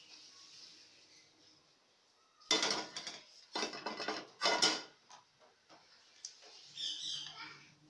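A metal pot and a steel mesh strainer clatter while bone broth is poured through the strainer into a pot of curry. There are three loud bursts between about two and a half and five seconds in, and a fainter one near the end.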